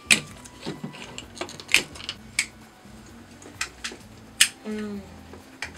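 Irregular sharp clicks of plastic PEZ candy dispensers as they are loaded with tablets and their heads flipped back to hand out candy.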